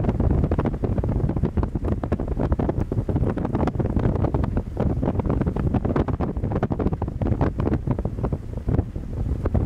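Wind buffeting the microphone on a moving ship: a dense low rumble that flutters rapidly and unevenly.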